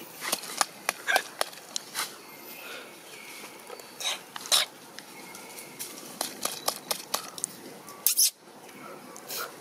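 Dry leaves crackling and rustling under a baby macaque as it scrambles around its mother, in irregular sharp clicks, with a louder rustle about eight seconds in.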